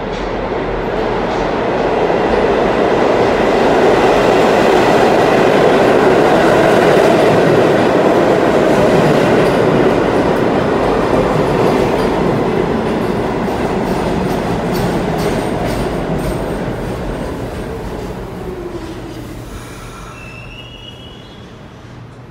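R46 subway train pulling into the station on the near track and braking to a stop. The rumble of wheels on rail builds as it comes alongside, then fades as it slows, with a falling motor whine and a brief high brake squeal near the end.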